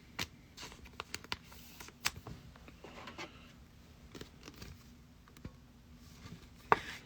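Trading cards being handled and set down on a table: a scatter of light clicks, slides and taps, with a sharper click about two seconds in and another near the end.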